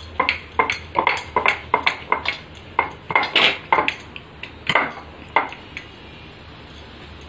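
Sharp clicks and knocks of kitchenware, about three or four a second: steel plates and a wooden rolling pin knocking on a stone rolling board as a dough ball is dusted in flour and set out for rolling. They stop about six seconds in.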